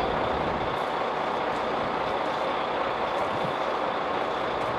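A heavy truck running: a steady, dense mechanical noise that holds unchanged throughout.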